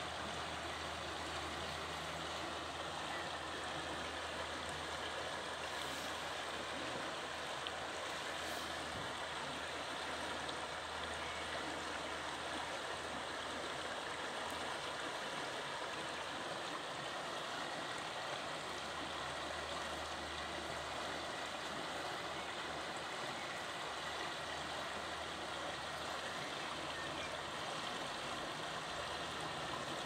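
Shallow river water flowing, a steady rushing babble, with a low rumble underneath that comes and goes.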